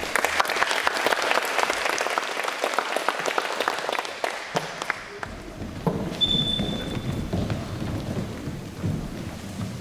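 Audience applauding, the clapping dying away about four to five seconds in; then the irregular thuds of dancers' feet running across the floor.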